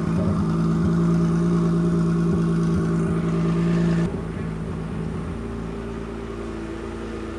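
Kia Stinger 3.3-litre twin-turbo V6 running at a steady speed on a chassis dyno, holding one note without revving. About four seconds in it steps down to a quieter, steady run.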